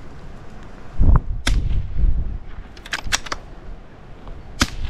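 .22LR rifle fire. A shot about a second in is the loudest sound, followed by a sharp crack. A quick string of several sharper cracks comes around three seconds, and another crack near the end.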